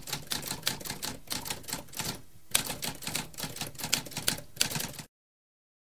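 Typewriter keys clacking in a quick run of strikes, with a short pause about two seconds in; the typing stops about five seconds in.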